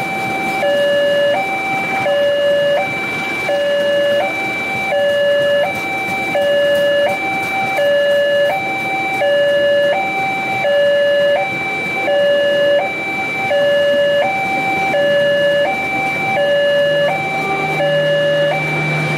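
Railway level crossing warning alarm sounding a steady two-tone pattern, high and low tones alternating about every two-thirds of a second. Underneath is the continuous rolling rumble of a passenger train's carriages passing over the crossing.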